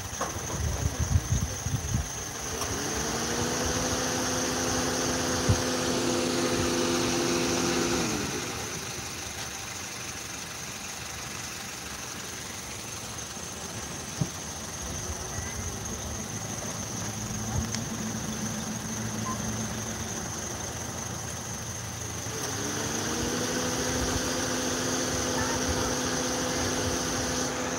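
A vehicle engine runs twice. Each time it rises in pitch over about a second, holds steady for some five seconds, then falls away. A fainter run of the same kind comes in between.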